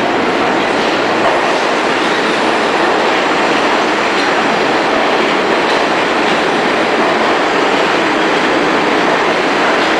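New York City Subway train running into an underground station: a loud, steady noise of wheels on rails that holds at the same level throughout.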